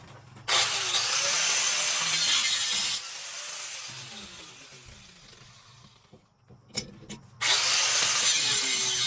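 Power grinder grinding the steel tang of a leaf-spring knife blank. It grinds for about two and a half seconds, winds down with a falling whine, then after two clicks starts grinding again near the end.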